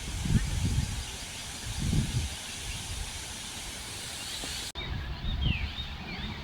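Outdoor ambience: a steady hiss with gusts of wind buffeting the microphone. After an abrupt cut about three-quarters of the way through, small birds chirp in short rising and falling notes over the wind.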